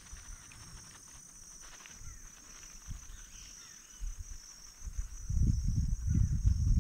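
Insects calling steadily in a high, even band. About five seconds in, a loud, uneven low rumble starts and drowns the rest.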